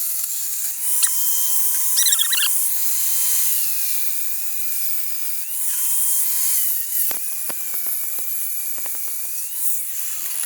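Grinder-type power tool with a toothed blade cutting sheet aluminum: a high motor whine that sags lower in pitch under load and recovers several times, over the hiss of the cut. A run of sharp clicks comes in the later part.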